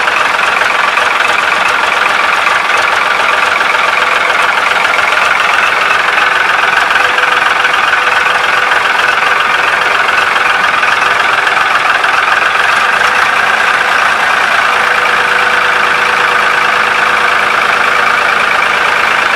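Ford 4560 tractor's three-cylinder diesel engine idling steadily, just after being started.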